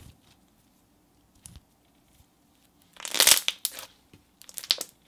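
Thick pink slime squished and pressed by hand on a stone countertop, giving crackling, popping air-bubble sounds. A loud burst of crackles comes about three seconds in, followed by a shorter run of pops near the end.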